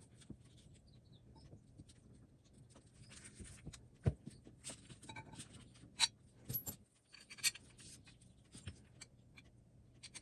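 Light clicks, scrapes and small metallic clinks from handling steel vise parts while brushing lubricant onto them. A sharper knock comes about four seconds in, and a few crisp ticks follow later.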